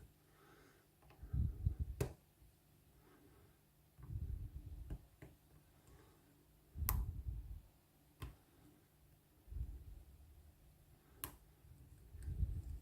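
Lock pick and tension wrench working the pins of a Lockwood oval pin-tumbler cylinder: four sharp clicks a few seconds apart, with short, dull low handling rumbles in between.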